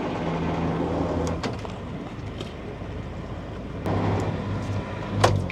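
Sailboat's inboard diesel engine running while manoeuvring to dock, the throttle opened twice for a second or so, with a few sharp clicks.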